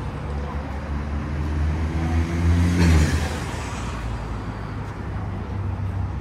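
A motor vehicle passing close by on a city street. Its engine hum builds to a peak about three seconds in, then fades away.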